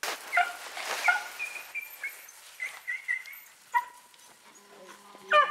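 Beagles baying on a hare's track, a run of short calls followed by a longer drawn-out bay near four seconds in and a loud call near the end.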